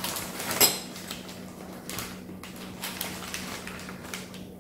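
Newspaper packing rustling as items are handled and lifted out of a box, with one sharp knock about half a second in.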